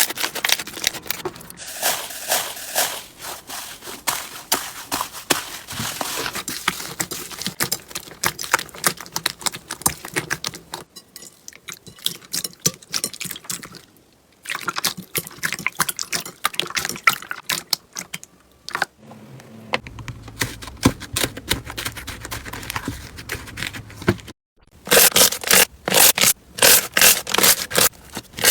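Slime being pressed, poked and kneaded by hand, making dense crackling and clicking pops with wet squishing. After a brief break about three-quarters through, it gives a quick, even run of sharp clicks.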